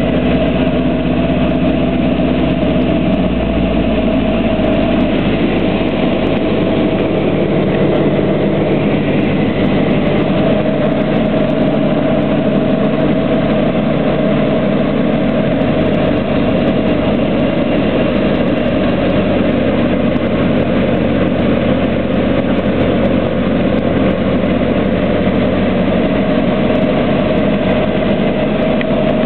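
Light airplane's piston engine and propeller droning steadily, heard from inside the cockpit while the plane descends on approach to land.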